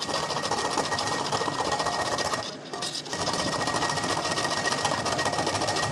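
Carrots being grated by hand on a flat stainless-steel grater: fast rhythmic rasping strokes, with a brief break about two and a half seconds in.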